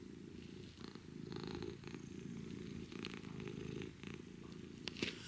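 A low, continuous rumble that swells and fades about once a second, with a single sharp click near the end.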